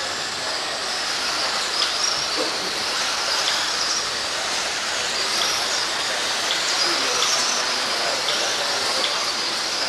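Several electric 1/10-scale 2wd stock RC buggies racing on a dirt track: a steady high whine of electric motors and gear drivetrains that rises and falls with the throttle, over a constant hiss of tyres on dirt. Occasional light ticks are heard.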